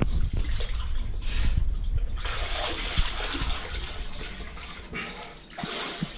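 Water splashing and sloshing as someone wades through floodwater, dying down near the end.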